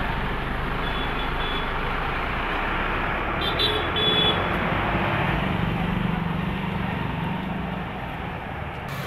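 Busy street traffic: a steady roar of passing motorcycles and a bus, with a short horn beep about three and a half seconds in.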